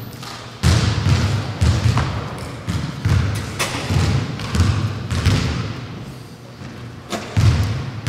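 Basketballs bouncing on a gym floor: a run of dull thuds, about three a second, starting about half a second in.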